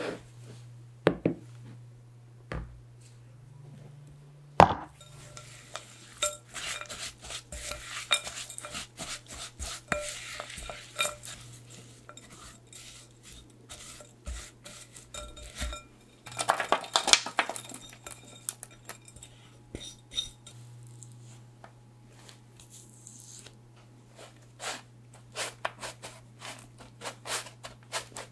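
A spatula stirs rolled oats and nuts coated in maple syrup in a glass bowl: the oats rustle, and the spatula scrapes and clinks against the glass. A single sharp knock, the loudest sound, comes about four or five seconds in, and a low steady hum runs underneath.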